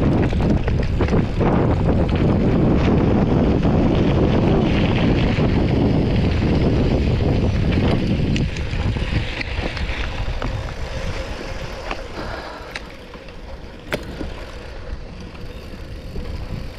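Riding a Poseidon X gravel bike on a dirt fire road: a steady rush of wind on the microphone mixed with tyre rumble on loose dirt. The noise drops off about halfway through, leaving quieter tyre and wind noise with a few sharp clicks and rattles.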